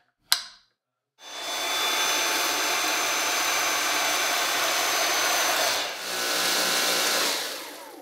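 A sharp click as the combination tool snaps onto the Dyson V7 cordless vacuum, then the vacuum's motor running steadily with a high whine. About six seconds in it dips briefly and changes in tone, and near the end the motor winds down with a falling pitch.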